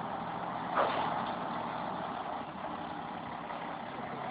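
Concrete mixer truck running, a steady engine noise, with a brief sharper sound just under a second in.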